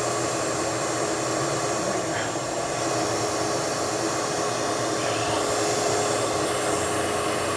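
Shop vac motor running steadily as it sucks standing rainwater up through a hose; it starts abruptly, a steady whine over rushing air.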